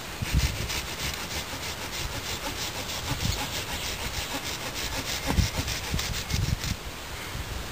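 Hand saw cutting through a wooden branch in quick, even back-and-forth strokes, stopping about a second before the end.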